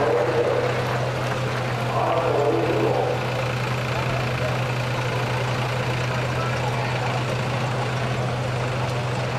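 Heavy super stock pulling tractor engine idling steadily, a constant low hum, with people's voices briefly over it about two seconds in.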